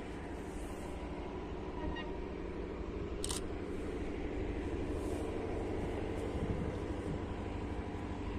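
A diesel locomotive's engine running out of view: a steady low hum that slowly grows a little louder. A brief sharp click about three seconds in.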